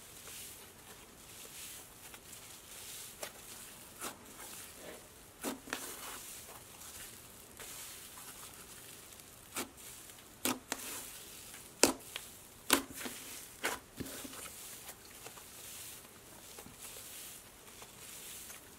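Hands stretching, squishing and folding a cloud slime: faint soft rustling and crackling, broken by a handful of sharp little pops and clicks, most of them from about ten to fourteen seconds in.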